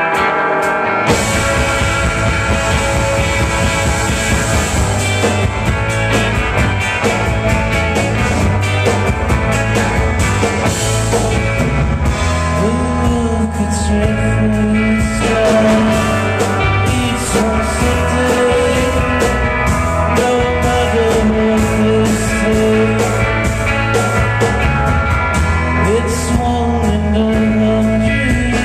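Live psychedelic rock band playing: a jangly electric guitar riff, with bass and drums filling in about a second in. A male voice sings over it through the second half.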